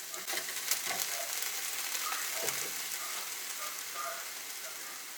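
Ground meat sizzling in a frying pan as it is stirred, with scattered clicks and scrapes of the utensil against the pan.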